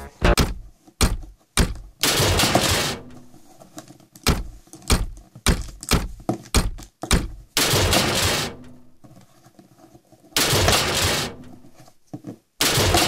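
Series of metal crash and metal thud sound effects: many sharp clanking hits, with four longer crashes of about a second each, the last one near the end.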